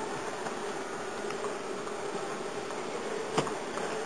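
A steady buzzing hum over even background noise, with a single sharp knock a little over three seconds in.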